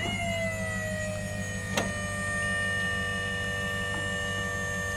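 A motor's whine holding at a steady pitch after rising just as it starts, over a low steady hum, with one sharp click about two seconds in.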